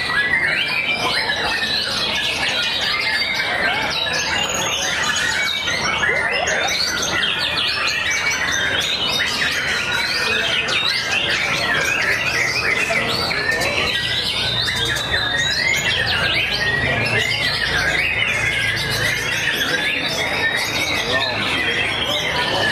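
Many caged white-rumped shamas singing at once: a dense, unbroken chorus of overlapping whistles and trills.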